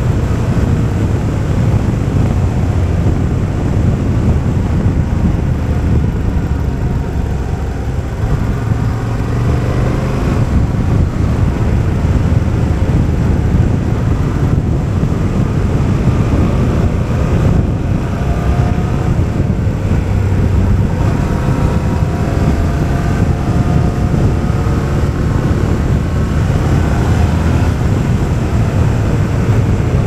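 Yamaha Ténéré 700's 689 cc parallel-twin engine through an Akrapovič exhaust, running steadily while the bike is ridden, with the engine pitch rising and falling several times through the bends.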